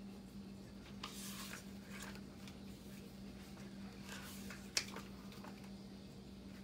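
Pages of a paperback book being fanned and turned, making soft papery swishes, with one sharp tap a little before five seconds in. A steady low hum runs underneath.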